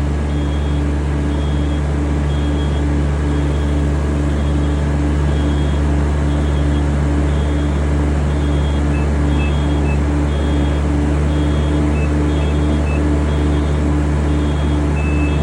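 Yanmar rice transplanter running steadily while planting, its engine a constant low hum with a pulsing tone about three times a second. A thin high beep repeats about twice a second throughout.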